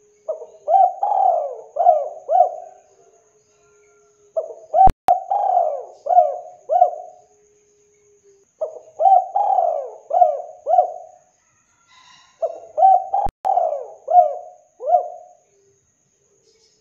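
Spotted dove cooing in four phrases, each a quick run of deep coos that rise and fall in pitch, with short pauses between the phrases.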